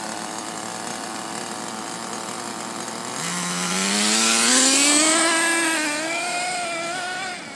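Nitro RC buggy's small glow engine idling with a high buzz, then revving up about three seconds in as the buggy accelerates away, its pitch climbing steadily, levelling off, and fading near the end as it drives off.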